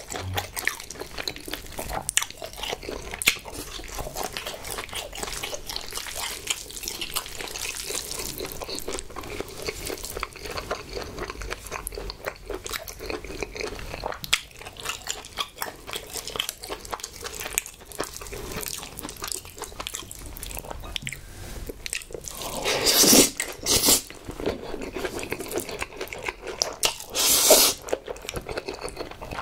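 Close-miked eating sounds: wet, sticky chewing of braised pig's trotters and spicy mixed noodles, with dense small clicks and smacks throughout. Two loud noodle slurps come about 23 and 27 seconds in.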